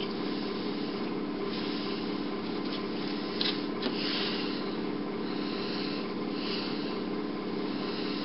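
Rustling and rubbing of hand puppets being handled and moved into view, with two light knocks a little after three and a half seconds and near four seconds in, over a steady low hum.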